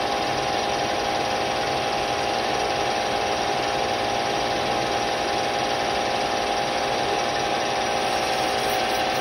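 EMCO metal lathe running at a steady speed, its spindle drive giving a steady whine, while a brazed carbide 45-degree tool cuts a chamfer on the inside edge of a plastic ring blank.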